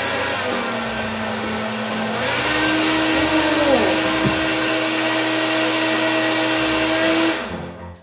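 Stand-mounted hair dryer blowing, a loud steady rush of air with a motor whine. The motor pitch drops about half a second in and climbs back about two seconds in as the airflow setting is changed from the remote, and the dryer winds down near the end.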